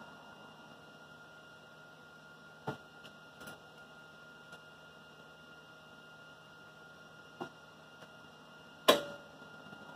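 A steady electrical hum with a few light metal clicks as tools are handled at the car body's panel seam, then one sharp metallic clink near the end that rings briefly.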